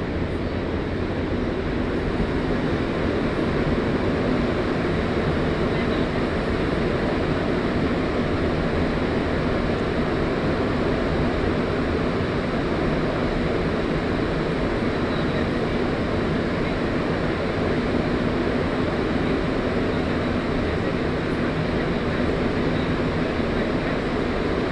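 Rubber-tyred MR-73 Montreal Metro train running at speed through a tunnel, heard from inside the car: a steady, unchanging rumble.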